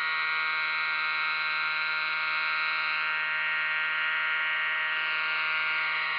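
GMP Rebel vintage RC helicopter running on the ground with its rotor turning: a steady high-pitched whine with many overtones, holding an even pitch.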